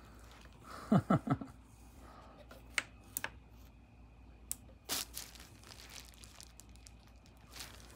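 Push-button and slide switches on a Marantz 4400 receiver's front panel being operated: a quick cluster of three clicks with short low thuds about a second in, then single clicks spaced a second or two apart.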